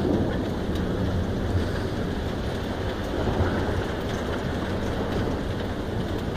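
Heavy rain falling steadily, with a low rumble of rolling thunder.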